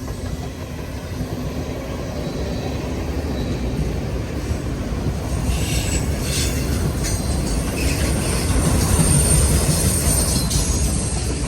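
Freight cars rolling past on the rails: a steady low rumble with high wheel squeal, and from about halfway in a run of clacks over the rail joints, growing louder.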